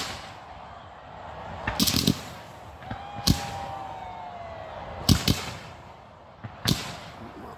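Aerial fireworks bursting overhead: sharp bangs in four groups a second or two apart, with a long falling whistle between them.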